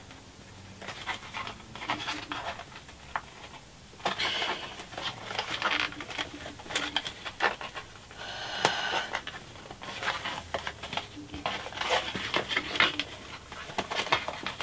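Hands handling a replica wand's display box: a scattered run of light clicks, taps and rubbing on the box, with breathy sounds in between.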